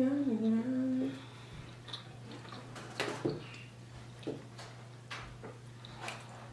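A short hummed tone for about the first second, then scattered wet mouth clicks and smacks from chewing food, about six over the next five seconds, over a steady low electrical hum.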